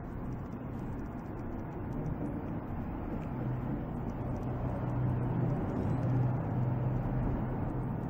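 Steady low mechanical hum over a rumbling noise, growing louder from about three seconds in.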